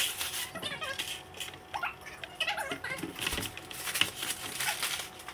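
Backing paper crinkling as it is peeled off skateboard grip tape, with hands rubbing and pressing the rough, sandpaper-like grip tape onto the deck. The result is an irregular, scratchy rustling.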